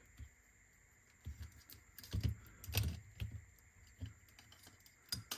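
Irregular light clicks and soft knocks of small parts being handled inside a cassette deck's tape transport, a handful spread over a few seconds.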